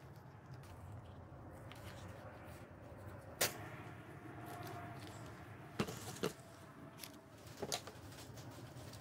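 Handling sounds of masking tape and a thin plastic bottle: a few short, sharp clicks and crackles, one about a third of the way in, a pair past the middle and one more near the end, over a low steady hum.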